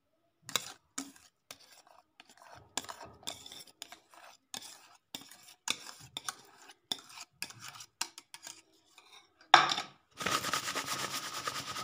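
Utensil scraping thick pastry cream out of a stainless steel saucepan as it is poured onto a sponge layer: a run of light clicks and scrapes of metal on the pot, then one sharp knock of the pot near the end, followed by denser continuous scraping.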